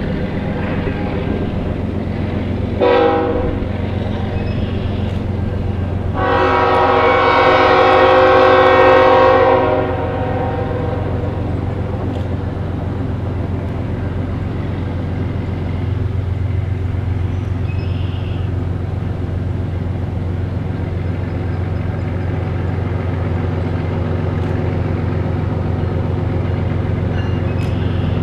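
Air horn of an approaching CN diesel freight locomotive: a short blast about three seconds in, then one long blast of about three and a half seconds, over a steady low diesel drone that grows a little louder near the end as the train draws closer.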